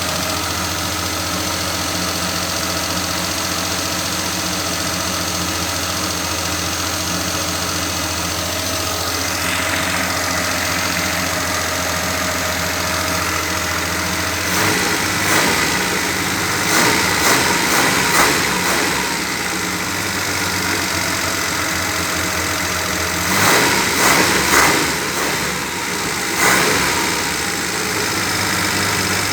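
Car engine idling steadily, then from about halfway through a few short groups of louder surges break into the idle.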